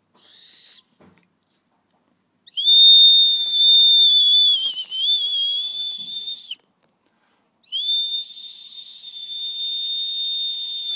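A homemade willow whistle blown with a single high-pitched tone: a short faint toot at the start, then two long blasts of about four and three seconds. The first blast is the loudest and wavers in pitch midway; the second holds steadier.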